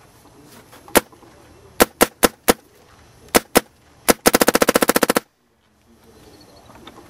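Proto Matrix PM6 paintball marker firing: single shots and short strings of quick shots, then a rapid burst of roughly a dozen and a half shots in under a second that stops abruptly.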